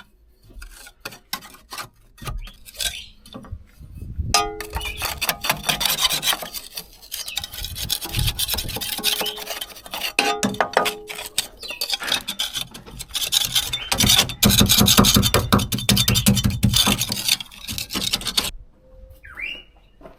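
Caked dirt being scraped and scrubbed off the metal cab floor of a mini excavator: a rasping scraping made of rapid ticks that starts abruptly about four seconds in, is loudest a little past the middle, and stops sharply near the end.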